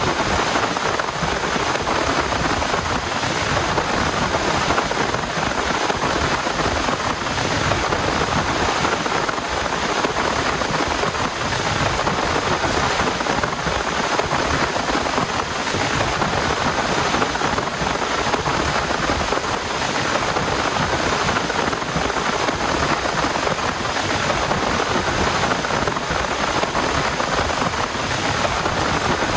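Heavy rain falling steadily, a constant dense hiss with no break.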